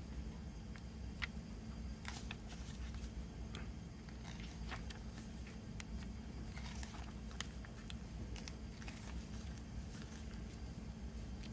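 Pages of a CD booklet being turned and handled: soft paper rustles and small ticks scattered throughout, over a steady low hum.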